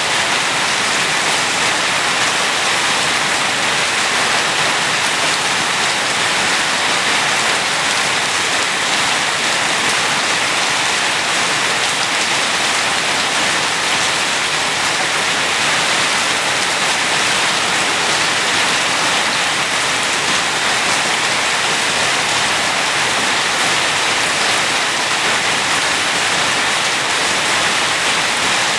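Steady rain falling, a dense even hiss of drops with no distinct drips or thunder.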